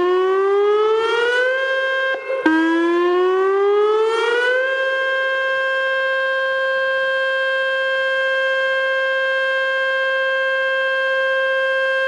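Nuclear power station outdoor warning siren sounding its test: the tone glides up in pitch for about two seconds, breaks off and rises again a couple of seconds in, then holds one steady tone.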